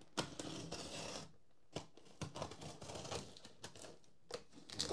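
Hands handling a cardboard shipping box with a utility knife ready: a short rubbing slide over the cardboard, then a run of light, irregular clicks and taps.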